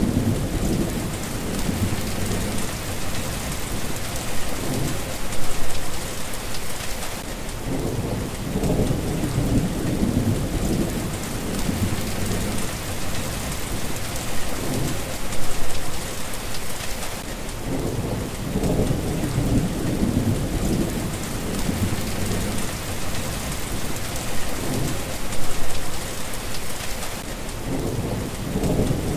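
Steady rain falling, with low rolling thunder rumbles that swell and fade about every ten seconds.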